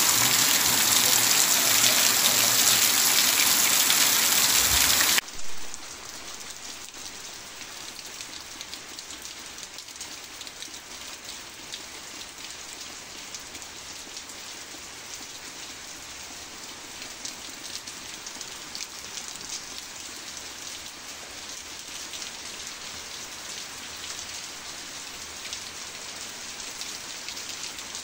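Rain shower falling in a loud, steady hiss; about five seconds in it cuts to a much quieter, even patter of rain with fine drop ticks.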